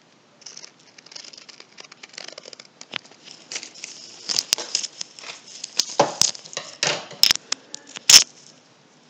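Crumpled paper crinkling and rustling as it is handled close to the microphone, with scattered sharp clicks; the busiest handling comes in the second half, and the loudest click is a little after eight seconds in.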